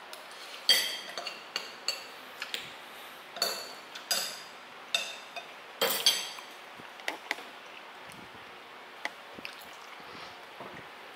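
Metal spoons and forks clinking and scraping against ceramic plates during a meal. The sharp, ringing clinks come every half second or so for the first seven seconds, then only now and then.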